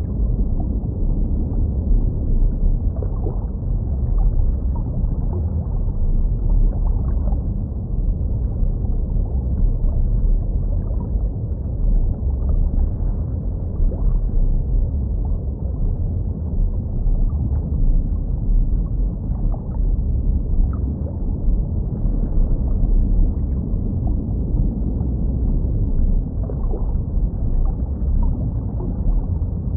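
Muffled underwater ambience: a steady deep rumble with faint watery gurgles and scattered small ticks.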